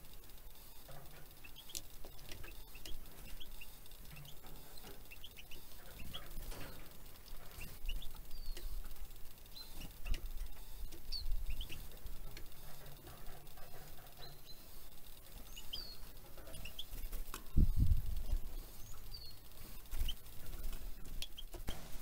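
Small seed-eating and insect-eating songbirds at a feeder, giving many short scattered chirps and call notes, with light wing flutters and pecking. A single low thump a little past three-quarters of the way through is the loudest sound.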